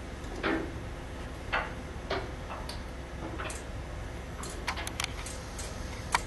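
Scattered light clicks and taps as a bench power supply and amplifier board are handled, over a low steady hum.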